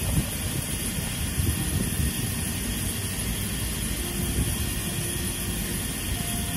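Steady hum and low rumble of stationary Izukyu 8000-series electric trains idling at the platform, their onboard equipment running.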